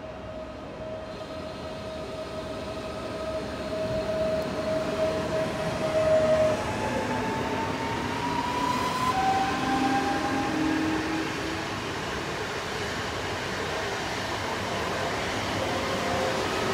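PKP Intercity electric multiple unit rolling past along the platform, its wheels rumbling on the rails with an electric whine. The train grows louder over the first few seconds, and a whine rising in pitch comes in about halfway through.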